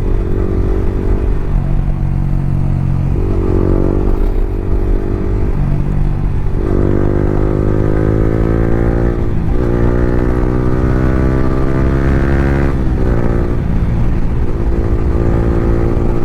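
Yamaha R15 V3's single-cylinder engine running through an Akrapovic R9 exhaust with no dB killer, accelerating through the gears. The note climbs steadily and drops sharply at each upshift, several times, then holds steadier near the end.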